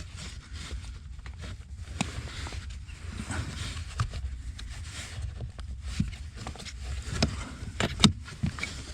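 Irregular clicks, taps and knocks of hands working a plastic car blower fan loose from its housing under the dashboard, pulling it down and twisting it. A sharp double click comes near the end, over a steady low rumble.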